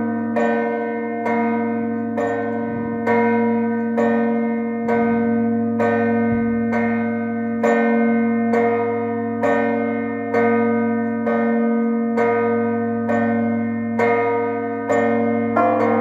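Maltese festive peal (mota) on a ring of six church bells: strikes come about twice a second and overlap into a continuous ringing. The peal marks the close of the feast.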